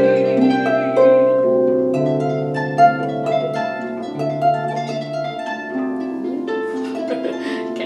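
Harp being played: a melody of plucked notes, some ringing on, over held low bass notes.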